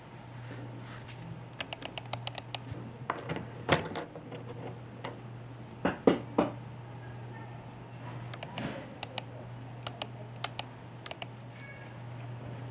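Mouse buttons clicked in quick runs of sharp plastic clicks, with a few heavier knocks in between and a steady low hum underneath.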